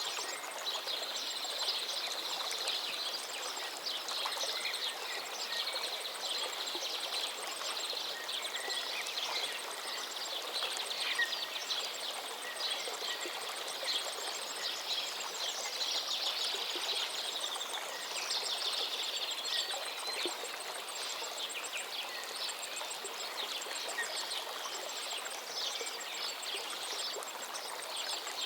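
Steady rush of falling water at Duduma waterfall, with high chirping calls scattered over it.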